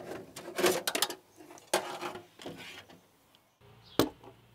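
Metal parts scraping and clattering inside a stripped car door shell as a part is worked out through the bottom of the door, then a single sharp metallic click from the removed door latch mechanism about four seconds in.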